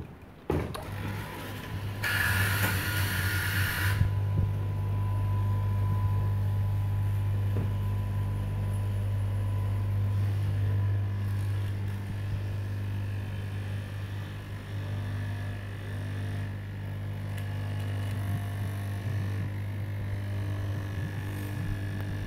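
Straight-knife cloth cutting machine running and cutting through a tall stack of T-shirt fabric: a steady low motor hum that starts about half a second in. A loud hiss lasts about two seconds shortly after the start.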